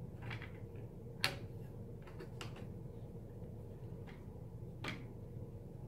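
A few short clicks and taps as a replacement LCD panel is handled and pressed back into a laptop's screen lid. The sharpest click comes about a second in and fainter ones follow, over a steady low hum.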